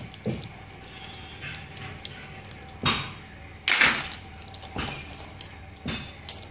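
Slate pencils clicking and clattering against one another as a hand rummages through a box of them, in irregular dry clicks, the loudest a little before and around four seconds in.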